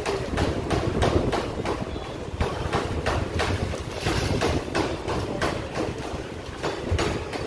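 Water sloshing and splashing in a wash tank as a car radiator is plunged in and lifted out, water pouring from the radiator back into the tank, with repeated splashes.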